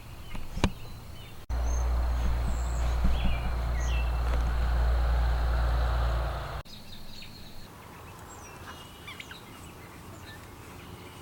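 Small birds chirping outdoors, with a few seconds of loud wind buffeting the microphone starting and stopping abruptly, beginning about a second and a half in.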